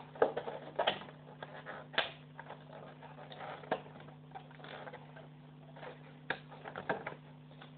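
Clear plastic packaging handled close to the microphone, giving scattered light clicks and crinkles, with a steady low hum beneath.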